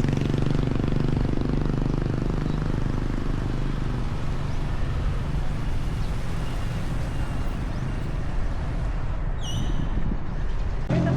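Vehicle engine running steadily with a low hum. About nine and a half seconds in there is a brief high rising chirp.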